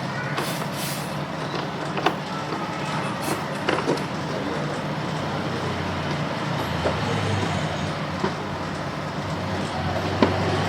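Motorbike-washing sounds: a steady machine hum under a hiss, with a few short sharp knocks and clicks.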